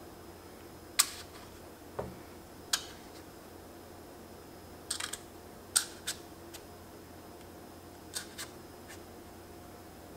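Kitchen handling sounds while cupcake batter is poured from a glass jar into a paper-lined metal muffin tin: scattered short, sharp clicks and taps, with a duller thud about two seconds in and a quick cluster of taps near the middle, over a steady low hum.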